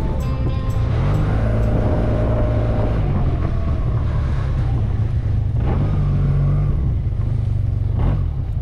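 Motorcycle engine running while riding, its pitch rising and falling with the throttle, under a steady rush of wind on the microphone.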